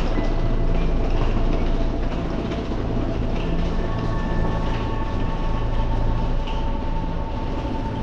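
Slow background music of long held notes over a low drone.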